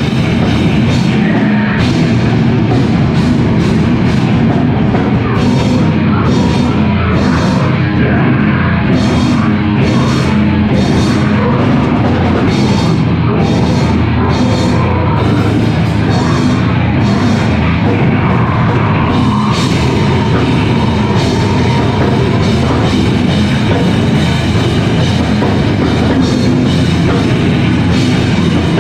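A live heavy rock band playing loud, with the drum kit driving a dense, unbroken wall of sound.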